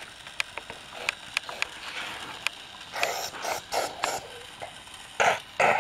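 Small sharp clicks, then louder clattering about three seconds in and again near the end: plastic toy trains, track pieces and pebbles being handled on a play mat.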